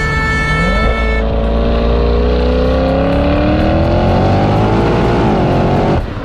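Another car's horn sounds for about the first second. Then the stage 3 tuned Audi RS6 Avant's twin-turbo V8 and exhaust accelerate hard, the pitch rising steadily for about four seconds before dropping back near the end.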